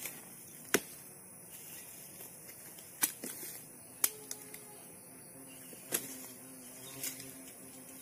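Five sharp knocks or cracks at irregular intervals, one to two seconds apart, over a faint steady background.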